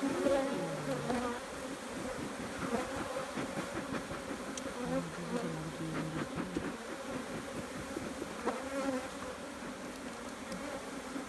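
Honeybees buzzing around an opened hive: many overlapping wavering hums, with a few faint clicks.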